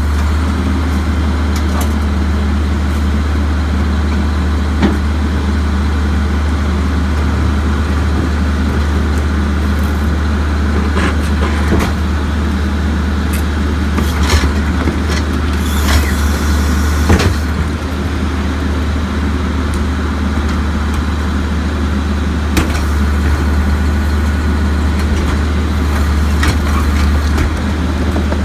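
Crane Carrier garbage truck's diesel engine running steadily while its Leach rear-loader's cart tippers dump plastic refuse carts into the hopper. Several knocks and bangs of the carts against the tippers and hopper are heard, with a short hiss in the middle.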